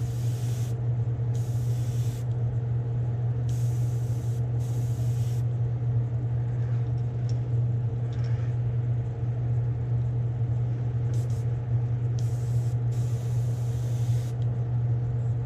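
Gravity-feed airbrush spraying paint at low pressure in short hissing bursts, about eight of them, with a long pause midway. A steady low machine hum runs underneath.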